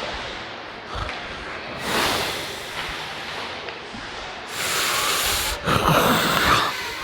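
Ice-hockey skate blades scraping across the rink ice: a short hiss about two seconds in, then a longer, louder scrape from about four and a half seconds that stops shortly before the end.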